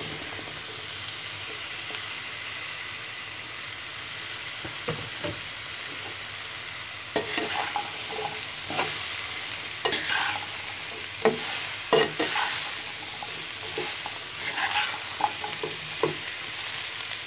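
Cut taro stolons sizzling in hot oil in a wok, with a metal spatula scraping and knocking against the pan as they are stirred, from about seven seconds in.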